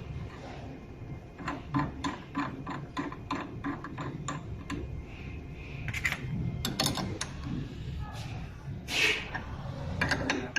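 Mechanical clicking: a regular run of sharp ticks at about four a second, then scattered clicks and a louder rattle near the end, over a low steady hum.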